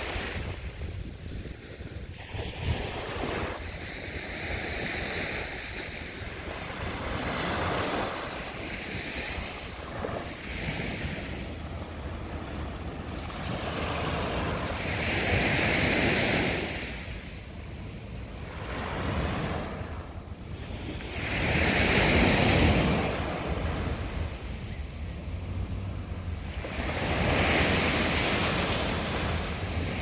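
Small sea waves breaking and washing up a sand beach. The surf swells into louder surges about every six seconds in the second half, with wind rumbling on the microphone underneath.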